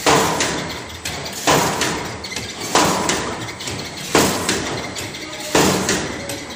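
Square-cookie forming machinery running, with a heavy thump repeating about every one and a half seconds, each one ringing out and fading before the next.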